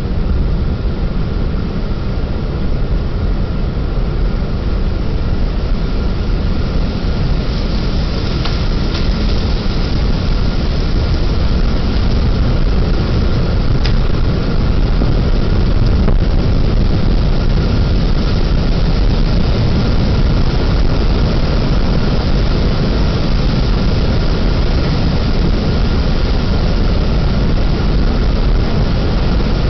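Roar of an approaching EF-4 tornado's winds on a home security camera's microphone: a loud, steady, rumbling rush of wind that builds slightly, with a few faint clicks.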